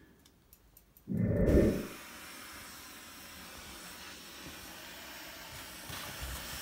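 Small pen-style butane gas torch burning with a steady hiss, its flame heating a solder patch on a brass radiator tank. Before it, a few faint clicks, and a brief loud thud about a second in.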